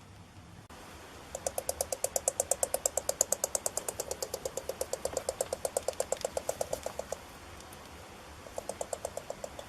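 Porcupine making a rapid, even clicking clatter, about eight clicks a second, for about six seconds, then a shorter run near the end.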